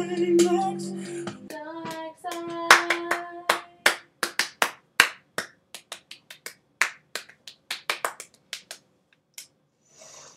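Singing with held notes over music, then a long run of sharp hand claps, quick and uneven, growing fainter.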